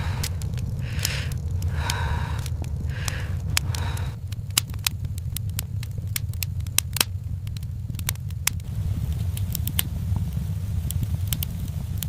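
Wood fire crackling, with irregular sharp pops and snaps over a steady low rumble. A few short, soft higher sounds come in the first few seconds.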